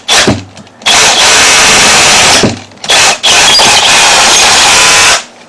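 Milwaukee M12 FUEL SDS-Plus rotary hammer drilling with a long 1/2-inch bit, loud. It runs in several bursts with short pauses, the longest near the end, then stops.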